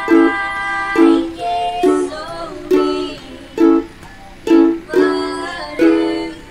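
Ukulele strummed in a steady rhythm through the chords A, D and E, with a strong strum about once a second and a voice singing the melody over it.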